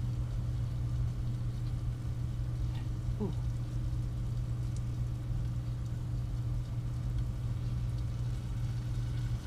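A steady low mechanical hum, with a brief squeak-like glide about three seconds in.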